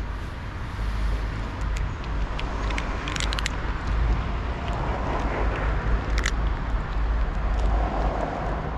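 Tuxedo cat crunching dry kibble, with scattered sharp clicks of chewing, a small cluster about three seconds in, over a steady low rumble.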